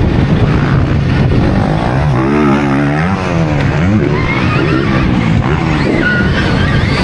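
Riding sound of a Stark Varg electric motocross bike on a dirt track: a steady rush of wind and drivetrain noise, with a pitched motor note that rises and falls about two to four seconds in.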